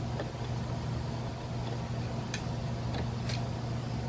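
A few faint, scattered clicks as the flywheel of a Mitsubishi TV43 brush-cutter engine is turned by hand, an engine whose piston had stuck and would not pull, over a steady low hum.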